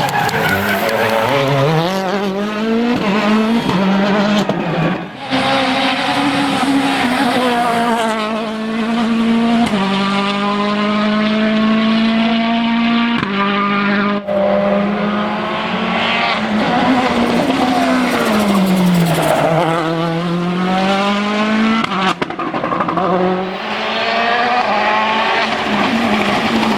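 Citroën DS3 WRC rally car's 1.6-litre turbocharged four-cylinder engine revving hard. Its pitch climbs and drops repeatedly through gear changes and lifts, held high for a few seconds near the middle.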